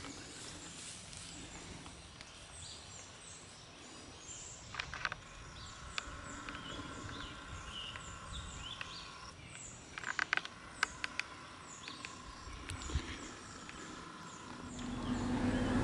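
Quiet summer woodland ambience full of short, high, repeated chirping calls, with a few bursts of crackling rustle as leafy plants brush close by. Near the end a low diesel locomotive rumble rises as a freight train approaches.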